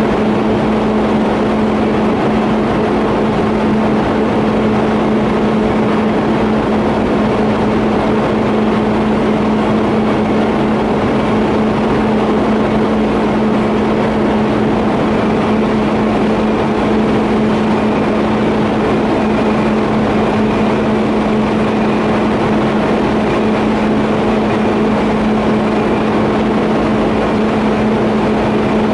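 TIG welding on a 50A pipe flange and elbow: a steady electrical buzzing hum from the arc and welding machine, unbroken throughout.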